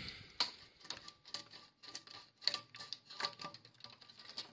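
Light, irregular clicks and taps, a few each second, over a faint steady high tone.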